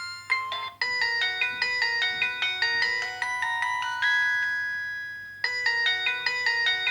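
Samsung SGH-B100 mobile phone playing polyphonic ringtones: one tune ends just after the start, and a new quick melody of chords begins under a second in, holds a long note, and starts over from the top about five and a half seconds in.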